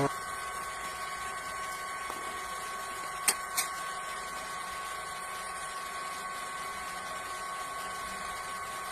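A steady machine hum with a faint, held whine, broken by two short clicks about three seconds in.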